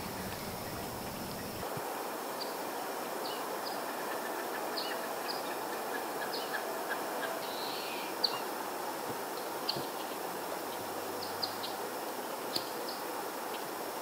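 Outdoor woodland ambience: a steady hiss with short, high bird chirps scattered throughout and a few faint clicks.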